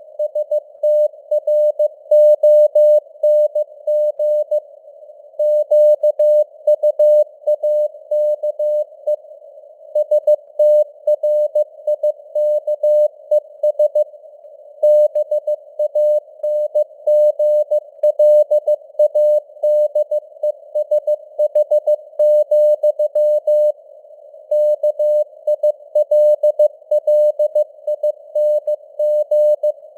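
Morse code (CW) sent at 15 words per minute: a single steady tone keyed on and off in dots and dashes, with short pauses between letters and words. It sits in a narrow band of simulated receiver hiss, and the signal strength varies as in radio fading (QSB).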